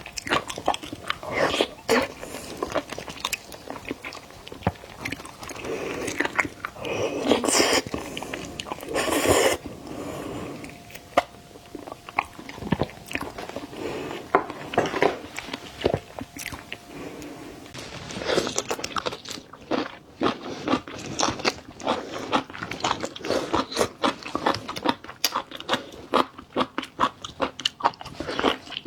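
Close-miked eating of seafood: biting, crunching and chewing, with a few longer crunching bursts early on. From about two-thirds of the way through, a fast run of sharp, wet mouth clicks from chewing.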